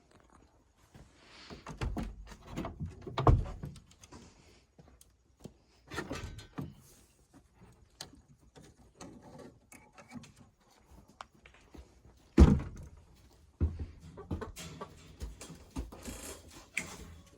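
Irregular thumps and knocks with scuffling in between, the two loudest about three seconds in and about twelve seconds in.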